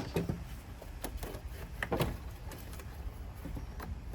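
Parts being handled in a car's engine bay: a sharp click at the start, then a few scattered light knocks and a brief rubbing scrape about two seconds in.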